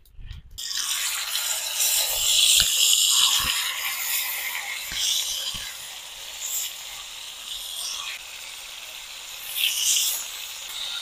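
Masala-marinated chicken pieces sizzling as they are dropped into hot oil in a wide pan, a steady frying hiss that swells again each time more pieces go in, with a few light knocks.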